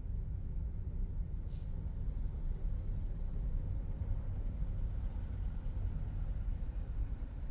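Steady low rumble of a car driving on city roads, engine and tyre noise, with one short tick about a second and a half in.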